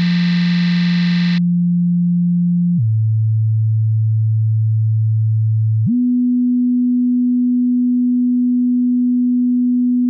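A loud, buzzy distorted note that turns into a pure electronic sine tone about a second and a half in. The sine tone steps down to a lower pitch about three seconds in, then jumps up higher about six seconds in and holds.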